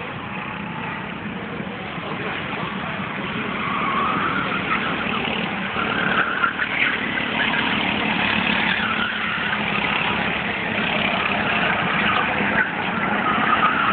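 Several go-kart engines running as a group of karts laps the track, their pitch rising and falling as they accelerate and brake, growing louder about four seconds in.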